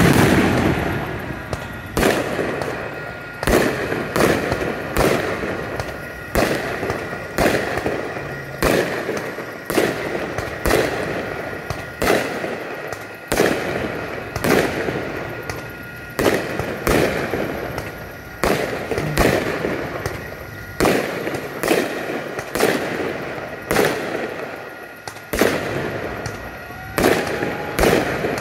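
Fireworks bursting overhead: a long string of sharp bangs, roughly one every second or so. Each bang is followed by a fading rumble and crackle.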